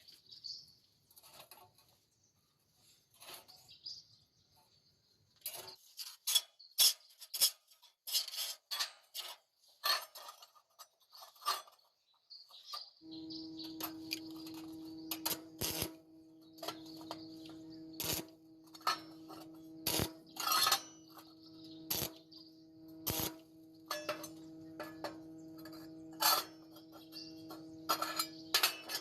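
Sharp metallic clinks and taps, scattered and then in quick runs, as steel pieces and tools are handled. About halfway through, a steady machine hum starts and keeps running under the clinks.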